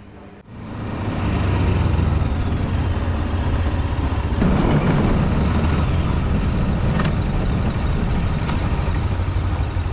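Motorcycle on the move: its engine running steadily with heavy wind noise, starting suddenly about half a second in.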